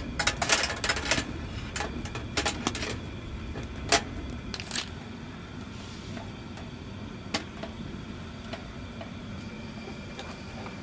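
Metal clinking and rattling as a round wire grill mesh is set onto the steel top of a wood-burning stove: a quick run of clinks in the first three seconds, a sharper click about four seconds in, two near five and a last one about seven seconds in, then only a steady low background.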